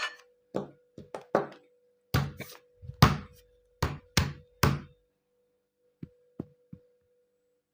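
A series of about a dozen sharp knocks and thuds at uneven spacing, the loudest about three seconds in, and three shorter, fainter ones near the end. A faint steady tone sounds under them.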